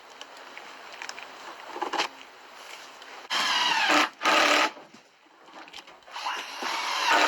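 Packing tape being ripped off a cardboard box: rustling and small clicks, then three loud rips, the last about a second long.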